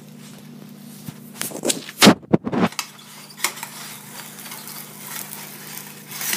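Metal spatula scraping and clinking against a stainless steel frying pan as it is worked under a pancake, with a loud clatter of knocks about two seconds in and lighter clicks after.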